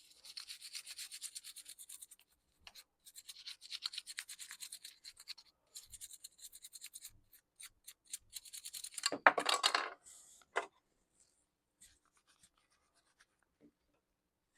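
Quick back-and-forth rubbing strokes of a cleaning cloth or brush on a laptop part, in several short bouts, with a louder, fuller stretch of scrubbing about nine seconds in, then a few faint clicks.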